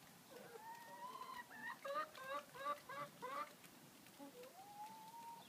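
A hen calling: a drawn-out rising call, then a quick run of about six short clucks, then another long drawn call near the end.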